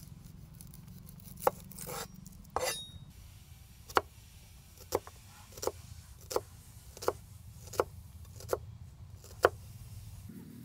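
Chef's knife chopping a red onion on a cutting board: a knock and a couple of slicing scrapes near the start, then eight sharp knocks of the blade on the board, about one every three-quarters of a second, over a low steady hum.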